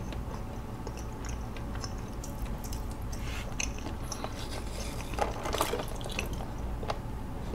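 Faint mouth sounds of sipping chocolate bubble tea through a wide straw and chewing: scattered small wet clicks and smacks.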